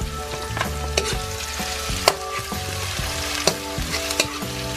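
Chopped garlic, onion, ginger and chili sizzling in hot oil in a wok while a spatula stirs them, with several sharp clicks of the spatula against the pan; the loudest comes about two seconds in.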